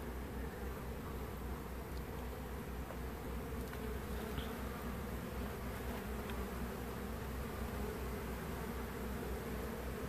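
Steady buzzing of a honeybee colony in an open aquarium observation hive, many bees flying around the hive.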